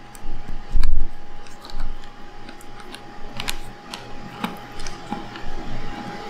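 Small scattered clicks and ticks of a micro Phillips screwdriver working a tiny screw out of a Sony A7R camera body, with a dull thump just under a second in.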